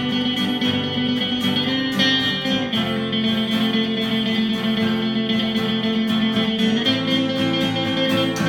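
Instrumental break of a rock song with no vocals: guitars playing held chords, which change about three seconds in and again near seven seconds.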